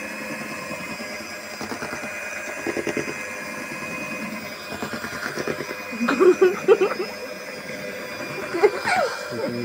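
Electric hand mixer running steadily, its beaters working flour into sour-cream cake batter with a constant motor whine. Brief voices break in a few seconds from the end.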